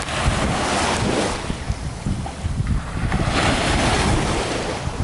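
Small waves washing up onto a sandy beach, swelling twice, with wind rumbling on the microphone.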